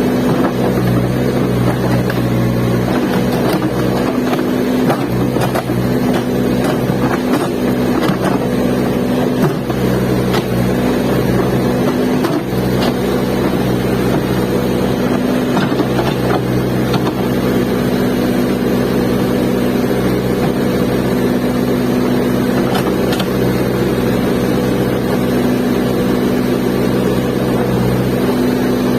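Backhoe loader's diesel engine running steadily at working speed, with a few faint knocks in the first half.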